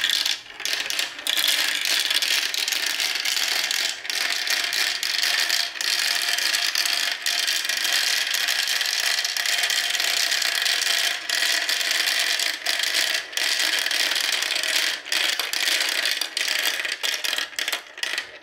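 Glass marbles rolling down a plastic spiral marble-run track, a dense continuous rattle of many balls clattering along the plastic channels. Near the end the rattle breaks up into separate clicks and short runs.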